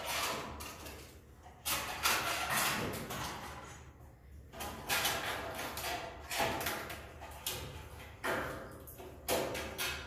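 Swiftlet nests being scraped off wooden ceiling rafters with a long-handled pole scraper: a series of rough scraping strokes, roughly one a second, each starting sharply and trailing off.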